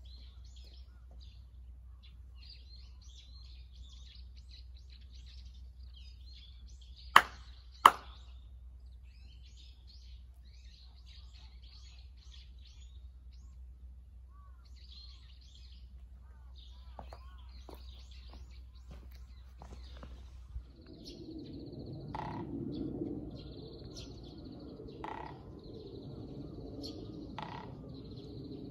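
Small birds chirping throughout. About seven seconds in come two sharp hand claps, less than a second apart: the two-clap kashiwade of worship at a Shinto shrine. In the last third a louder, low background noise takes over.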